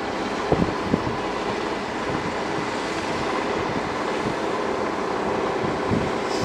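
Large 6 kV electric bucket-wheel sand excavator running as it loads sand into railway wagons: a steady machinery rumble and rush, with a couple of short knocks about half a second and a second in.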